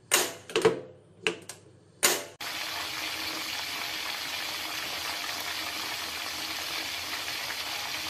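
Kitchen sound effects for cooking instant noodles: a few sharp clicks and clatters, then, about two and a half seconds in, a steady rushing hiss of water starts.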